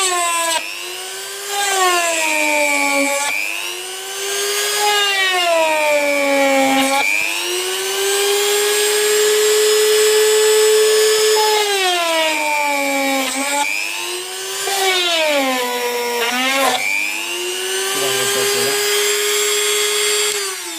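Dremel-type rotary tool running at high speed with a steady whine. Its pitch drops and climbs back several times, each swing lasting a second or more.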